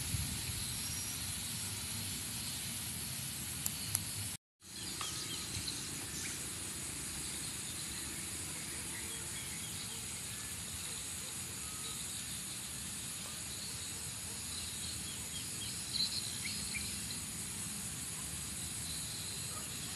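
Steady high-pitched insect chorus, with a few faint short chirps near the end. The sound drops out completely for a moment about four and a half seconds in.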